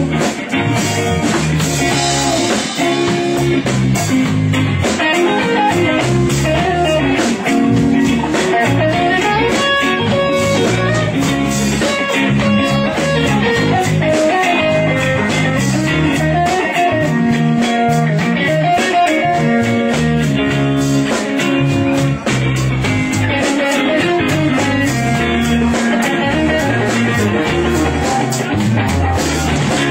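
Live rock band playing an instrumental, guitar-led passage: electric guitar over bass guitar and drums, with no vocals.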